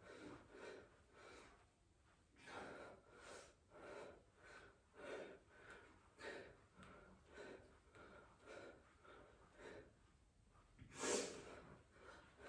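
A man breathing hard from exertion during flutter kicks: faint, short puffs of breath at about one or two a second, with one louder exhale about eleven seconds in.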